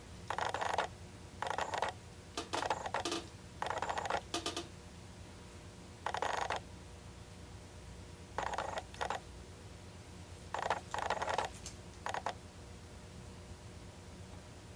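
Short bursts of crinkly rustling handling noise, about a dozen, with a longer pause in the middle. A faint steady hum runs underneath.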